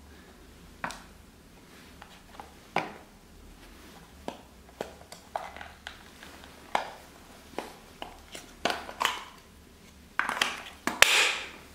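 Small plastic clicks and knocks from handling a Honda Accord main relay as its plastic housing is pushed back on. Single clicks every second or two, then a louder stretch of scraping and clicking about ten seconds in.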